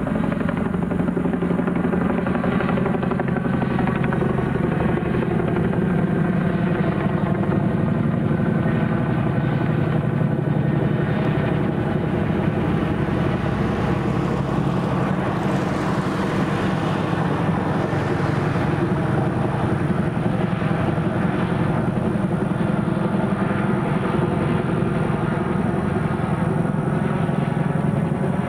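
Boeing CH-47 Chinook tandem-rotor helicopter flying low on approach to land, its twin rotors and engines giving a loud, steady beating drone.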